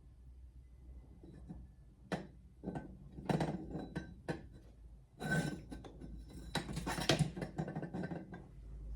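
Handling noise of craft work: light clinks and rattles of small hard parts, with string being pulled into a knot. Quiet for about two seconds, then scattered clicks that get busier about five seconds in.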